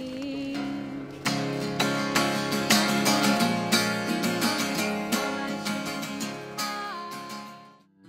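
Acoustic guitar music, strummed and picked. It grows fuller about a second in and fades out near the end.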